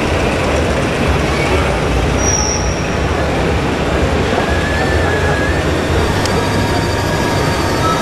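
Steady, loud rumbling din of a crowded exhibition hall around working RC construction models.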